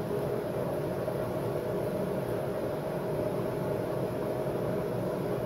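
Steady machine hum with an even hiss, unchanging, like a fan or blower running.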